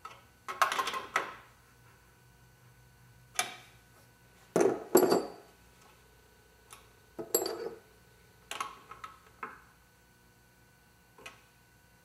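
A 9/16 wrench clinking against the nut and fittings of a fire-extinguisher release T-handle as it is tightened into a metal dashboard panel: about six short bursts of metallic clicks and rattles, a couple of them ringing briefly.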